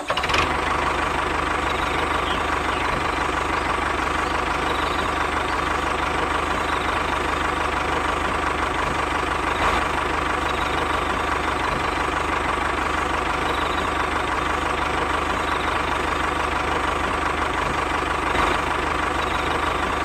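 An engine running steadily at an even idle, unchanging throughout.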